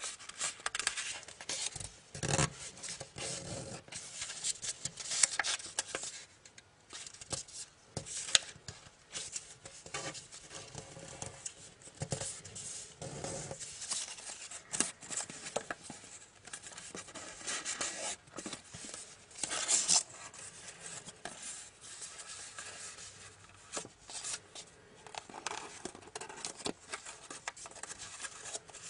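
Blue origami paper being folded and creased by hand, rustling and crinkling in irregular short bursts.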